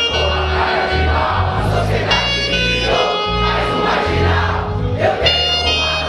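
Live hip-hop backing track with a heavy pulsing bass and a saxophone playing long held notes, with many voices of the crowd over it.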